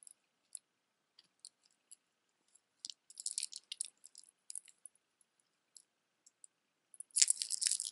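Silver-tone metal chain necklace with red stones in metal settings clinking and jingling as it is handled: scattered light clicks, with a denser jingle about three seconds in and a louder one near the end.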